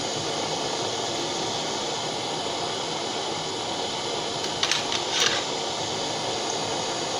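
Butane blowtorch flame hissing steadily while it keeps borax flux molten in a crucible. A few short clicks sound about four and a half to five seconds in.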